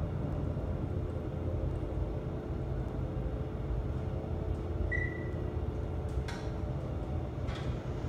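1984 Dover Traditional elevator car travelling in the hoistway: a steady low rumble with a faint hum, a brief high beep about five seconds in, and two sharp clicks near the end.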